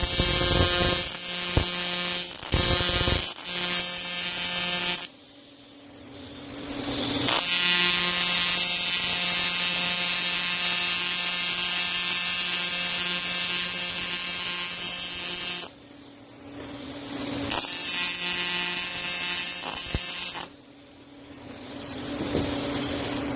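A machine running with a steady buzz and a high hiss. It cuts out about five seconds in, again about sixteen and twenty seconds in, and starts up again after each stop.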